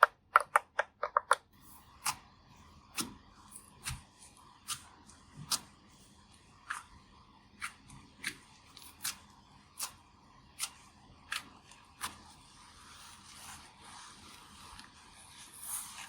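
A quick run of light pitched taps, then sharp single clicks or snips about one every three-quarters of a second. Near the end these give way to a soft, steady brushing hiss.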